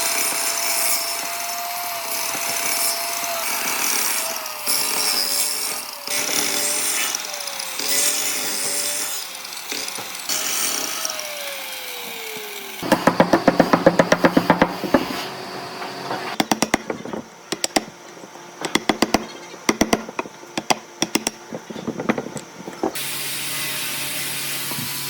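A power tool cutting wood, its motor tone wavering and then sinking in pitch about halfway through, followed by a long run of quick, sharp knocks and strokes on wood.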